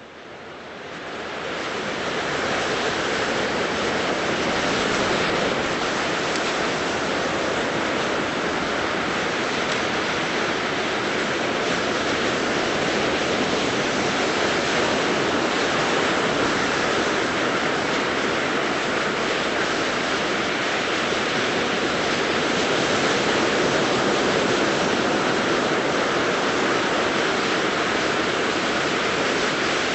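Ocean surf breaking on a beach: a steady rush of waves that fades in over the first couple of seconds.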